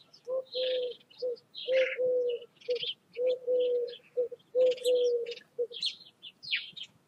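A dove cooing in a steady repeated phrase of short and drawn-out low coos, with small songbirds chirping in the background.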